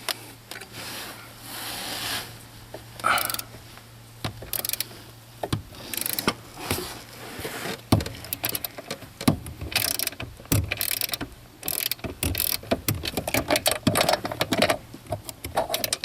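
Socket ratchet clicking in short, irregular strokes with knocks of metal, loosening the steering column's 12 mm pivot bolt up behind the dash.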